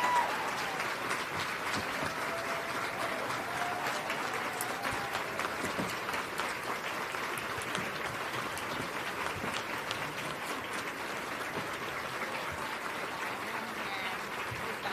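Audience applauding: many hands clapping steadily, easing off slightly toward the end.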